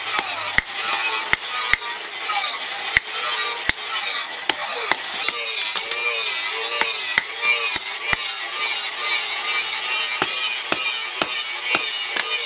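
Hand hammer striking a red-hot steel cleaver blade on a steel post anvil: repeated sharp metallic blows, about one to two a second and unevenly spaced, as the blade is forged. Background music plays throughout.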